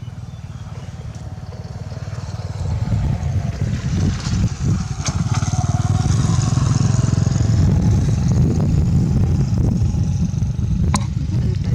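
A small engine running steadily, getting louder from about three seconds in.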